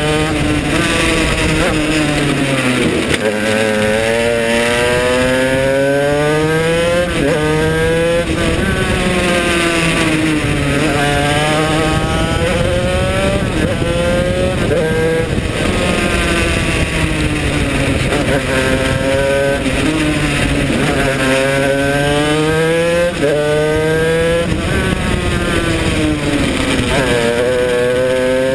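Shifter kart's Honda CR80 two-stroke engine at full racing pace through a six-speed gearbox. Its pitch climbs steeply, drops sharply at each upshift and falls away as the kart slows for corners, again and again.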